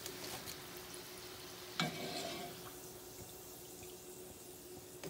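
Hot oil sizzling steadily as moong dal bhalla fritters fry in a pan. About two seconds in, a single sharp metallic clink with a short ring, as the steel slotted spoon knocks against the pan.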